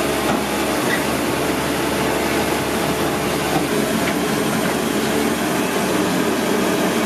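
Caterpillar 320D2 excavator's diesel engine running steadily at working speed, with a few faint clicks and knocks over it.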